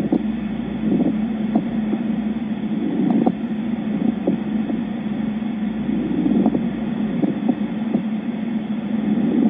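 Stethoscope recording of a pleural friction rub: a rough, rasping scrape heard through the chest wall that swells and eases with each breath, with scattered short crackles. It is the sign of inflamed pleural layers rubbing together.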